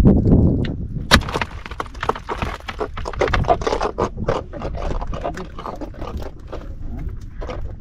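Rapid, irregular knocking and scraping in a small fishing boat as a freshly caught bonito is handled, with a single sharp crack about a second in.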